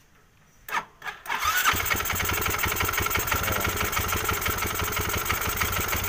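Yamaha Mio MX 125 scooter's carbureted single-cylinder engine cranking briefly and catching about a second in, then running steadily. It starts at once after a carburettor cleaning, a one-click start.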